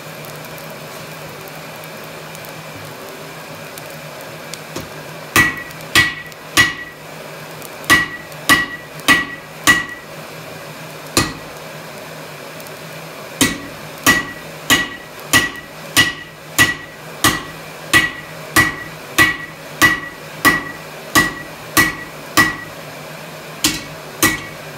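Hand hammer striking hot steel on an anvil while forging a drawknife, each blow with a short bright ring. The blows start about five seconds in, first in a few short groups, then settle into a steady run at a little under two blows a second before a brief pause and a few more near the end.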